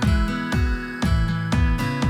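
Background music: an acoustic-guitar track with a steady beat.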